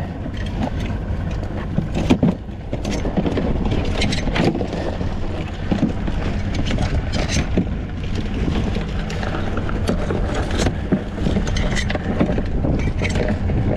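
A boat motor running steadily, with scattered sharp knocks and rattles from handling a crab pot and its catch.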